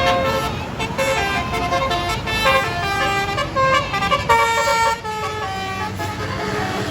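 Tour bus's basuri telolet multi-tone air horn playing a quick melody of shifting tones, ending in a loud held chord that cuts off about five seconds in. After it, a bus engine runs with a low rumble.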